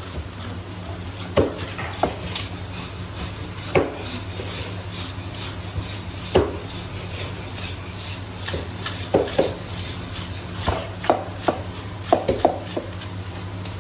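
Whole Indian salmon being scaled by hand with a flat scraping tool on a wooden board: scraping strokes over the skin, with irregular sharp knocks as the tool strikes the fish and board, over a steady low hum.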